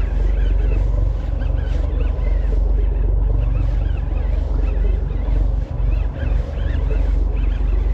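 A fishing boat's engine running steadily with wind buffeting the microphone, making a constant low rumble, with faint short chirps higher up.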